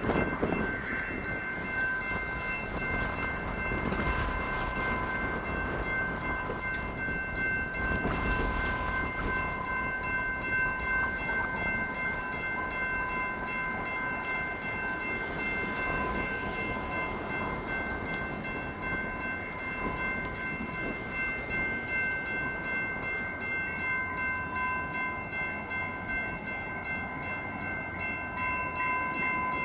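Railroad grade-crossing warning bells ringing continuously, several steady tones layered together over a low background rumble.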